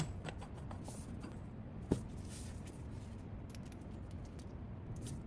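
Light clicks and one sharp knock about two seconds in, over a steady low hum: metal fixture parts being handled.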